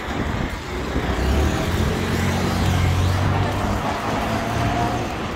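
Road traffic, with a motor vehicle's engine running close by: a low steady hum that swells in the middle and eases off near the end, over general street noise.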